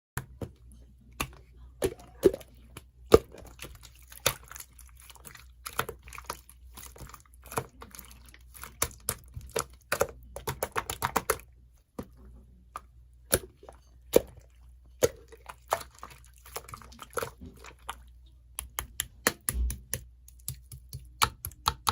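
Slime being squished, pressed and poked by hand, making irregular clicking and popping sounds, with a steady low hum underneath.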